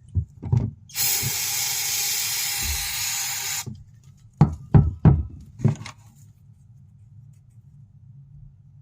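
Aerosol degreaser sprayed in one steady hiss of nearly three seconds onto a purge valve's carbon-clogged filter, followed by four sharp knocks about a second later.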